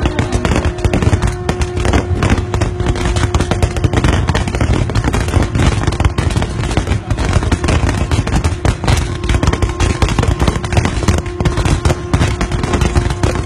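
Aerial fireworks going off in a dense, continuous run of bangs and crackles over a low rumble.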